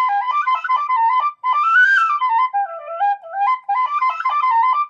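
3D-printed Irish tin whistle, copied from an O'Riordan, played in a quick tune of stepped notes in several short phrases with brief breaths between. It is a prototype head whose windway the maker says still lets through too much hiss.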